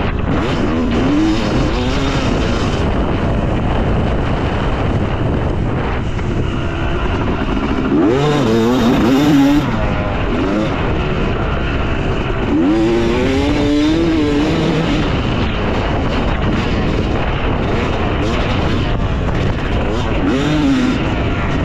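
Yamaha YZ250 two-stroke motocross bike's engine being ridden hard, its revs rising and falling through the gears over a constant rushing noise. The clearest surges of revs come about eight seconds in, again about twelve seconds in, and near the end.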